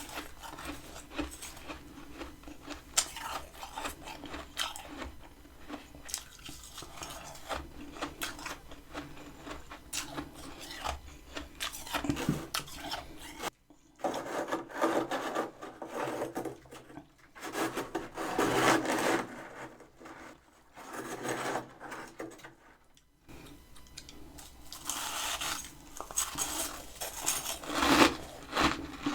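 Freezer frost being scraped and rasped: a dense run of fine scratching clicks, then, after a short pause about halfway, longer swells of scraping that come and go.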